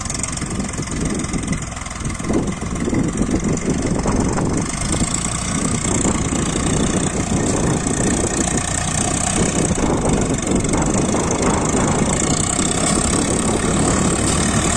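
Farm tractor's diesel engine running steadily as it pulls a loaded trailer through deep mud, getting louder about four seconds in as it comes closer.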